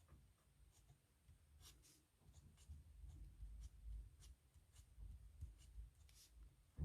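Pen nib scratching faintly on paper in short strokes, with soft low handling sounds from the desk and one sharp low thump at the very end.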